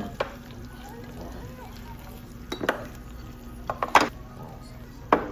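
Dishes and cutlery clinking: a handful of sharp clinks and knocks, the loudest about four seconds in, over a steady low hum.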